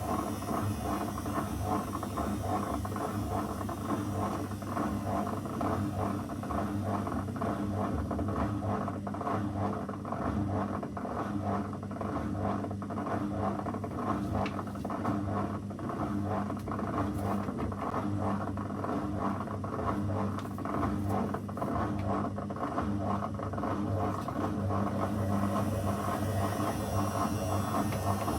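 Zanussi FL984CN front-loading washing machine running a 35° wash programme: a steady motor hum with a fine, continuous rustling from the turning drum.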